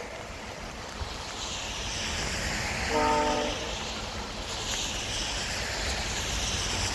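VIA Rail passenger train's horn sounding one short chord from a distance about three seconds in, over a steady rushing noise.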